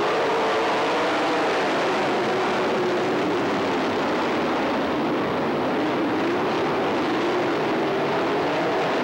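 A pack of race cars lapping a dirt oval, their engines running together in a steady loud drone. The pitch slowly rises and falls as the cars come off and into the turns.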